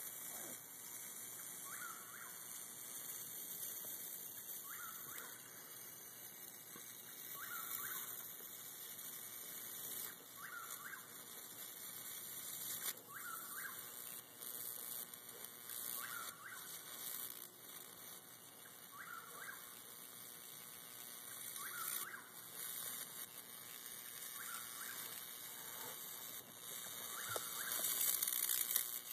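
Electric bug zapper's high-voltage grid arcing on and on through an insect lodged across it: a steady high-pitched sizzling crackle with sharper snaps now and then, growing louder near the end.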